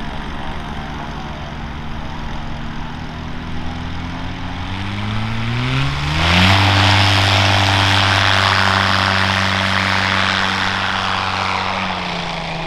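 Viking 195 aircraft engine (a turbocharged Honda Accord engine) and its propeller, running at low power, then about five seconds in winding up in pitch to full takeoff power. It stays loud and steady at full power with strong propeller noise, and the pitch drops a little near the end.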